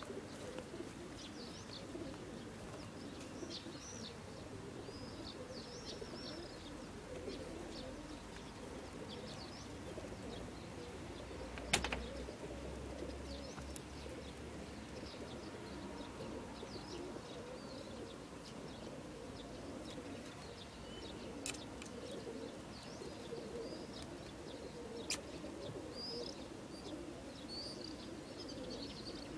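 Many racing pigeons cooing together in a crated transporter truck, a steady low murmur, with birds chirping over it. One sharp click a little before halfway.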